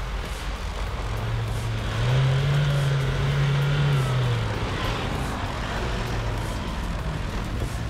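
Mitsubishi L200 pickup's engine revving under load as it climbs a muddy slope, its tyres churning through mud and slush. The engine note rises about two seconds in and eases off after about four as the truck passes close by.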